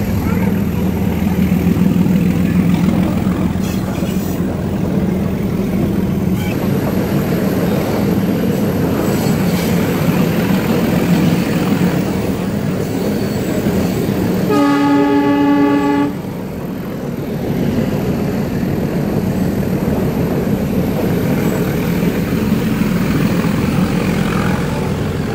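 Nilgiri Mountain Railway toy train running along the track, heard from inside the carriage as a steady rumble. The train's horn sounds once, held for about a second and a half a little past halfway.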